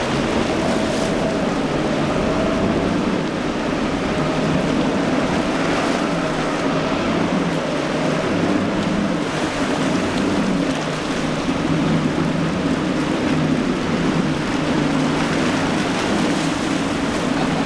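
Twin Yamaha outboard motors on a center-console boat running hard through rough surf, a steady drone with a faint whine over the first several seconds, mixed with the rush of breaking waves and wind.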